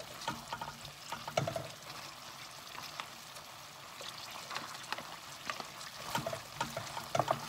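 Browned beef cubes sizzling in a stainless steel wok while a metal slotted spatula stirs them, scraping and clicking against the pan. The clicks come in clusters near the start, about a second and a half in, and near the end.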